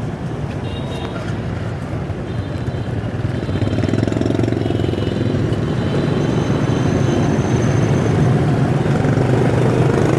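Motorbike engine running amid street traffic, a steady rumble that grows louder about three and a half seconds in.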